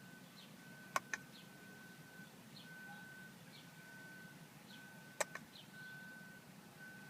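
A car's electronic warning tone pulses on and off about once a second, from a 2002 BMW 745Li that won't start and is showing many error messages. Two sharp double clicks come about four seconds apart.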